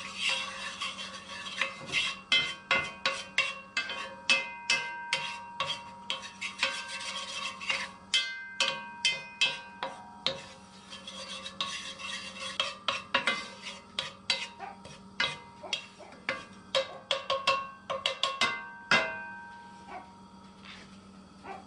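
Wooden spatula stirring dry parsley and basil around a hot pan: quick scrapes and knocks against the pan, several a second, some leaving a brief ring. The stirring stops near the end, leaving a faint steady hum.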